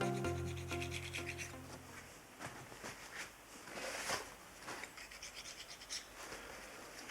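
A background music chord dies away in the first two seconds, then faint, irregular scraping strokes of a hand scraper on the engine's cylinder head, lifting off old gasket sealing paste.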